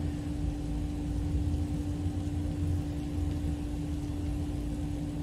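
Saucepan of sugar syrup at a foaming rolling boil on the stove, under a steady low rumble with one constant hum.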